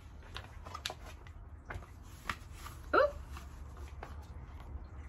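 Faint rustling and soft clicks of a picture book being handled and held up. About three seconds in there is one short voiced sound, rising in pitch, like a hiccup.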